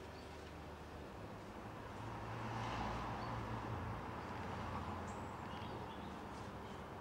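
Outdoor background: a low rumble that swells about two seconds in and fades again, like a distant vehicle passing, with a few faint, short, high bird chirps.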